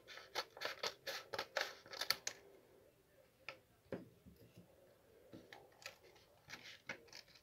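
Scissors snipping through a paper envelope, a quick run of sharp cuts over the first two seconds, followed by scattered faint paper rustles and taps as the envelope is handled.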